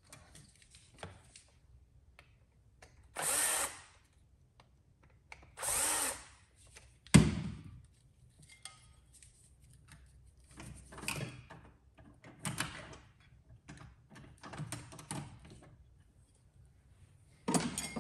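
Cordless drill-driver spinning in two short bursts, backing out the fasteners of jet bumper brackets on a pinball playfield's underside. A sharp knock comes about seven seconds in, followed by light clicks and rattles of loosened parts.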